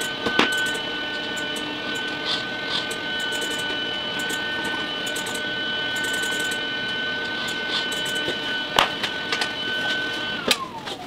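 An electric motor running with a steady high whine, then winding down in a falling whine near the end. A few short clicks and knocks come along the way, the sharpest about nine seconds in.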